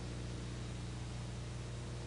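Steady hiss with a low, even hum underneath and no programme sound: the blank stretch of an old videotape transfer.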